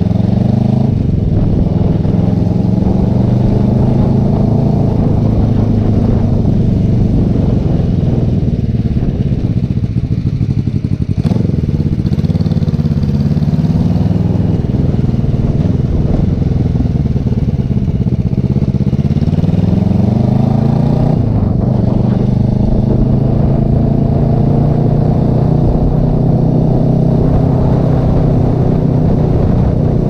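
Kawasaki Vulcan 500's parallel-twin engine running through fishtail exhaust tips fitted with homemade silencers while the motorcycle is ridden, its note rising and falling with the throttle and dipping briefly about eleven and twenty-one seconds in.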